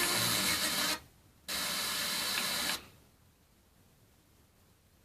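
Static hiss from a 1985 Yamaha T-520 AM/FM tuner being tuned off-station: two bursts of even hiss, each just over a second long, cutting in and out abruptly, then falling silent.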